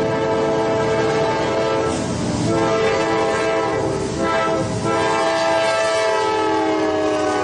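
Eurostar high-speed train's horn sounding a sustained chord of several tones over the rumble of the running train. The horn breaks off briefly twice, then its pitch slides slightly lower near the end.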